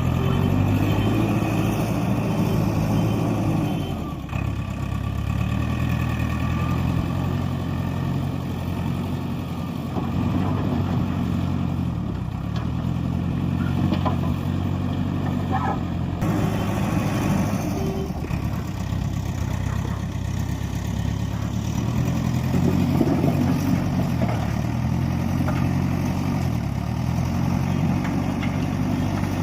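Heavy diesel engine of construction machinery running under varying load, its pitch stepping up and down as the engine speed changes several times.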